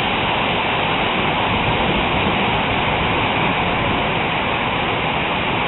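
Hailstorm: hail and heavy rain falling on the ground and roofs, making a dense, even hiss at a steady level.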